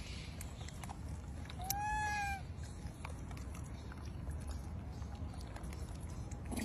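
A macaque gives one short coo call about two seconds in, its pitch rising then falling, over a steady low background rumble.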